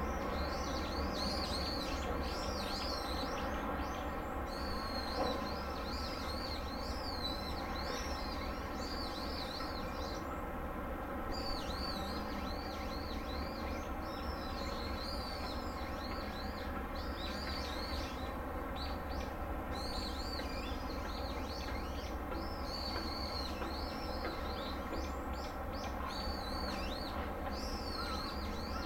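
Small birds chirping and twittering continuously, many short high calls overlapping, over a steady low hum.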